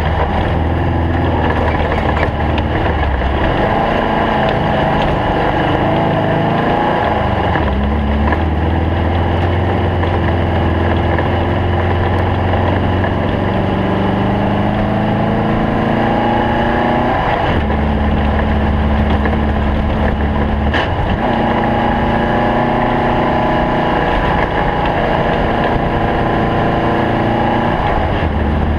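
Stock Volkswagen Beetle off-road race car's engine running hard under load, over steady road and chassis noise. The engine pitch climbs and then drops sharply at gear changes, several times.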